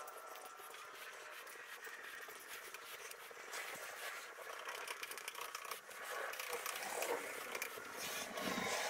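Yellow plastic spreader scraping thickened epoxy along plywood, played back sped up: a busy run of quick scrapes and clicks.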